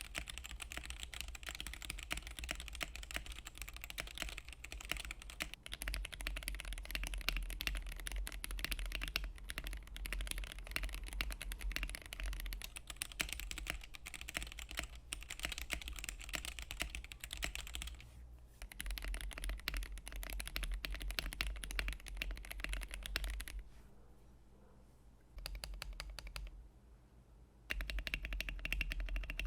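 Continuous fast typing on a GamaKay K61 60% mechanical keyboard with lubed Gateron Yellow linear switches, lubed and band-aid-modded stabilizers and PBT keycaps: a dense stream of keystroke clacks. It pauses briefly a few times in the second half.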